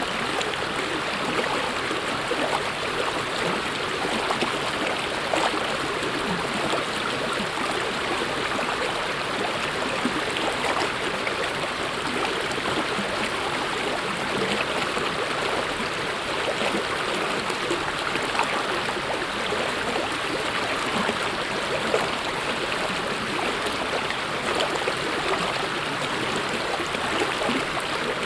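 Mountain stream running over rocks: a steady rush of water with small splashes and gurgles.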